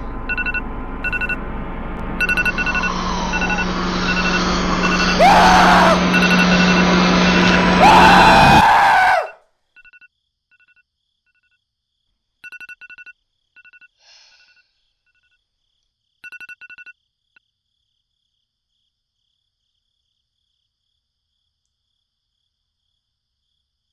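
Apple device alert tone: rapid repeating two-pitch electronic beeps. For the first nine seconds they sound over a loud rushing noise with a low hum and two sliding tones. That noise cuts off suddenly, and a few quieter groups of beeps follow before it goes silent.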